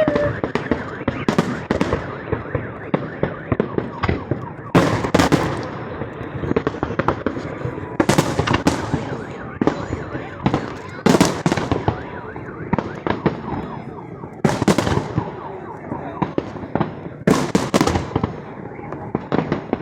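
Fireworks display: aerial shells bursting in a run of loud bangs, the biggest roughly every three seconds, with smaller pops and crackles between.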